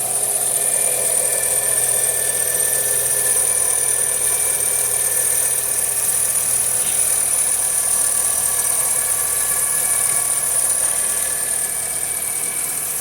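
A steady high-pitched squeal from a 2015 Nissan Versa, heard over the engine running; this is the weird noise the owner is trying to track down.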